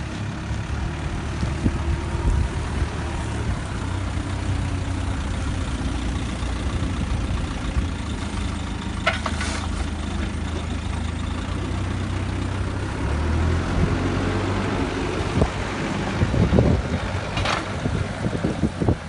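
Backhoe loader's diesel engine running steadily while its bale grab handles wrapped silage bales, with the tractor's engine running alongside. Two brief sharper noises cut through, one about halfway and one near the end.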